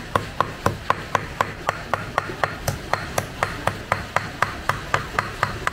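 Cleaver chopping and mincing water snake meat with lemongrass on a round wooden chopping board, in a steady rhythm of about four strokes a second.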